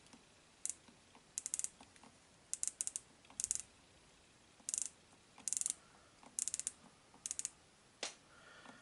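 The ratchet thimble of a Chinese digital micrometer clicking in about nine short runs of rapid clicks, roughly one run a second, as the spindle is turned down onto a 6 mm gauge block. The ratchet slipping is the sign that the set measuring force has been reached.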